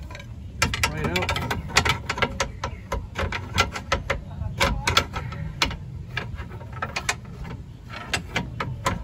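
Irregular metal clanks and knocks from a steel pry bar levering a Toyota 86's suspension arm down to free the stock shock absorber, at times hard enough to risk damaging parts.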